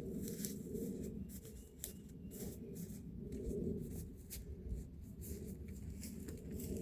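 Soft, irregular rustling and scuffing.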